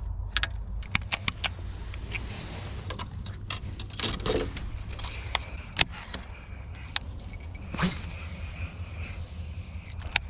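Steady high chirring of night insects, with scattered sharp clicks and a few light knocks over a low rumble.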